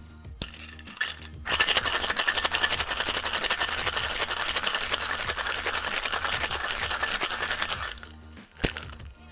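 Ice rattling rapidly inside a metal tin-on-tin cocktail shaker during a hard shake of about six seconds, after a couple of light clicks as the tins are fitted together. A sharp knock comes near the end.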